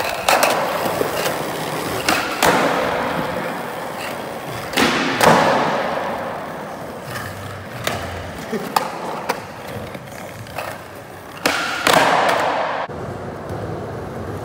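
Skateboard wheels rolling on a smooth concrete floor, with repeated sharp clacks and thuds of boards striking the ground, the loudest about five and twelve seconds in.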